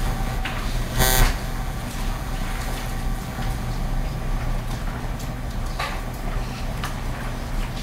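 Courtroom room tone: a steady low electrical hum with faint shuffling, and one brief loud noise about a second in.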